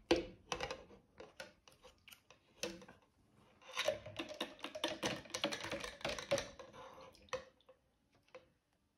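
Rapid small plastic clicks and taps as a plastic fashion doll is handled and knocked against a clear plastic cup. The clicking is scattered at first, then comes thick and fast for a few seconds from about four seconds in, and stops near the end.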